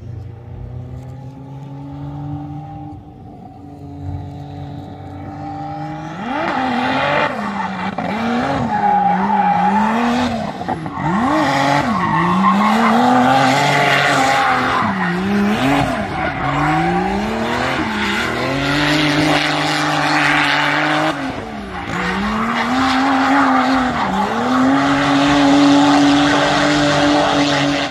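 Drift car at full lock: the engine revs climb and fall over and over as the driver works the throttle, and the tyres squeal continuously in a long smoky slide. The first few seconds are quieter, with the revs building, before the car comes close and both sounds grow loud.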